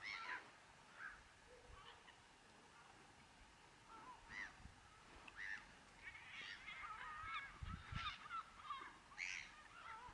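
A flock of gulls calling faintly: many short, overlapping calls, thickest in the second half.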